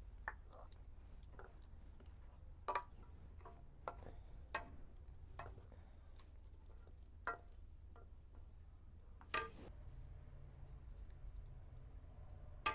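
Light, irregularly spaced clinks and taps of a spoon against a cooking pot, about a dozen, over a low steady hum.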